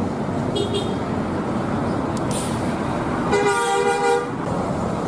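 Bus horn sounding one held chord for about a second, a little over three seconds in, over steady engine and road traffic noise. A brief high beep comes less than a second in.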